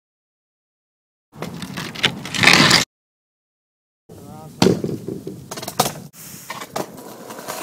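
Short clips separated by dead silence: a brief noisy stretch, then several sharp clacks of a skateboard striking concrete.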